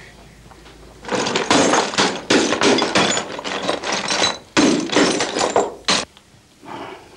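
Glass bottles being smashed into shards with a metal bar on a wooden board: a fast run of strikes breaking glass, starting about a second in and stopping about six seconds in.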